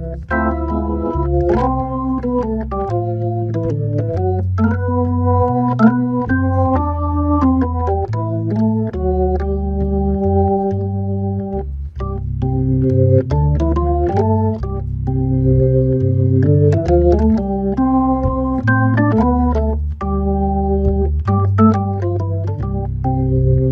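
Hammond B3 tonewheel organ playing a solo jazz waltz: held chords in the middle register over changing bass notes.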